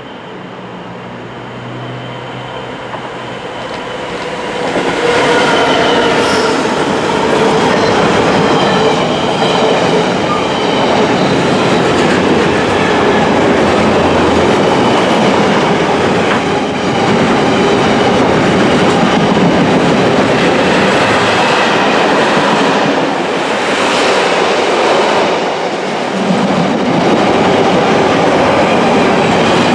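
A Class 66 diesel-electric freight locomotive's two-stroke engine approaches, growing louder over the first five seconds as it passes. Then a long train of container wagons rolls by, its steel wheels rumbling and knocking over the rail joints.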